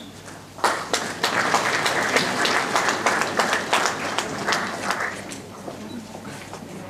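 Audience clapping for a graduate, starting about half a second in and dying away after about five seconds.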